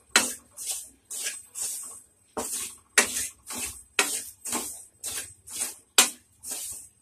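A spatula scraping and stirring dry semolina (rava) around a kadai as it is dry-roasted, about two strokes a second. Each stroke is a sharp scrape followed by a short hiss of moving grain.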